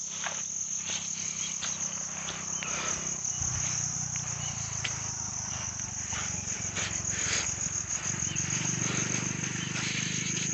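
Steady high-pitched insect chorus, with irregular soft footsteps squelching in wet, muddy ground.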